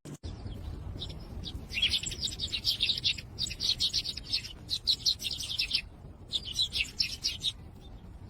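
A small bird chirping in quick runs of high, rapid notes, several phrases with short pauses between them.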